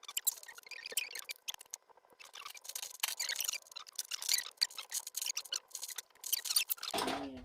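Plastic Lego bricks clicking and rattling as pieces are picked through and pressed together, a quick, irregular run of small clicks.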